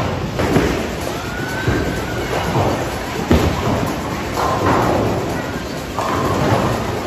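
Bowling alley: a bowling ball lands on the lane with a thud about three seconds in and rolls with a rumble, and pins crash near the end, over a steady rumble of balls and pins on other lanes.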